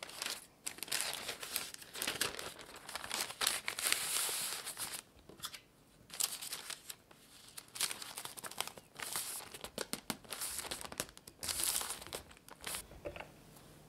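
Baking parchment paper rustling and crinkling as hands peel it back, fold it and press it flat. The crinkling comes in irregular bursts with short pauses.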